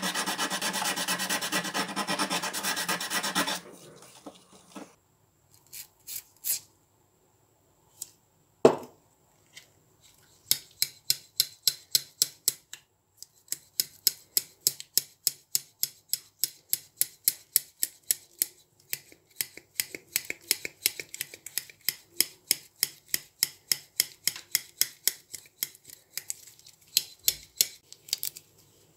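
For the first few seconds, rapid rubbing and scraping strokes as rust is worked off the steel of a Knipex side cutter. After a quiet gap and a single knock, the cutter's jaws are opened and shut over and over, snapping together in sharp metallic clicks about two to three times a second.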